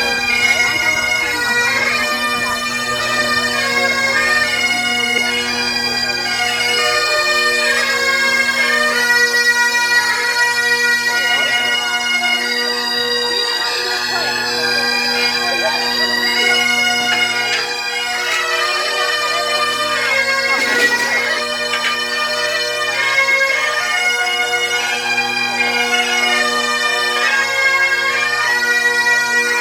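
Bagpipes warming up, playing a melody of held notes over their steady, unbroken drones.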